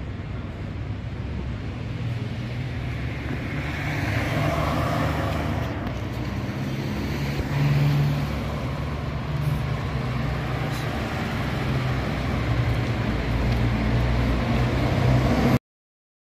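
City street traffic: car engines running and vehicles driving past, over a steady low engine hum that swells as they pass. It cuts off suddenly near the end.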